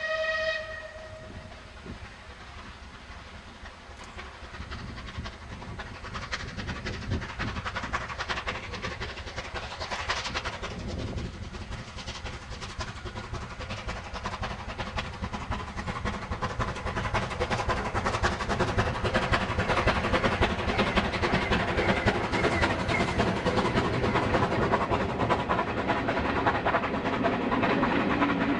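Steam locomotive giving a short whistle at the very start, then working a passenger train past, its running sound growing steadily louder as it approaches.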